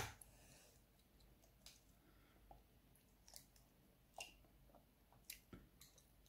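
Near silence broken by a few faint clicks and taps as an egg is handled over a glass bowl. About four seconds in comes a light tap with a short ring: the egg being cracked against the bowl.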